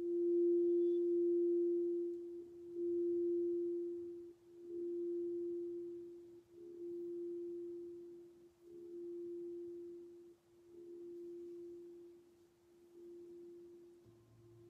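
A clear quartz crystal singing bowl sung with a wand around its rim gives one pure, steady tone that swells and dips about every two seconds and slowly grows quieter. Near the end a metal singing bowl joins with a lower hum and a few higher ringing tones.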